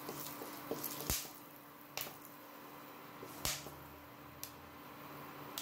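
A wooden spatula stirring whole spices in oil in a nonstick kadai: a few sharp clicks and knocks, the loudest about a second in and near three and a half seconds in, over a faint steady hiss.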